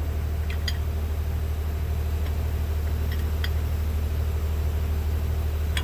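Cummins diesel engine of an M35 army truck idling steadily, with a few faint light metallic clinks.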